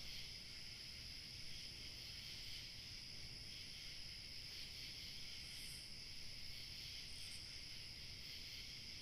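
Night insect chorus, crickets and the like, trilling in a steady, unbroken high-pitched drone, with a faint low rumble underneath and a couple of brief higher chirps about two-thirds of the way in.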